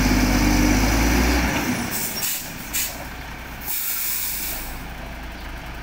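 Heavy truck's diesel engine running hard under load as it drags a cement tanker trailer out of a ditch, then throttling back about a second and a half in. Short hisses of air follow, then a longer air-brake hiss about four seconds in.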